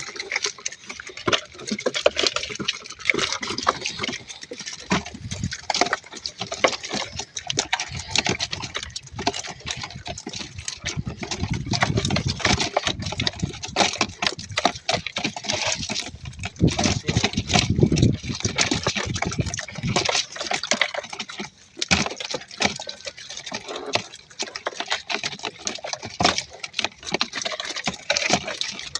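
Water splashing and sloshing, with many irregular sharp clicks and knocks throughout and heavier, deeper splashing in two stretches midway.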